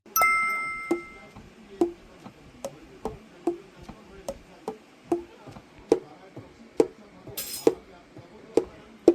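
A single metallic ring at the start, fading over about a second. Then evenly spaced light taps follow, a stronger one a little under once a second with fainter ticks between, and a brief hiss about seven seconds in.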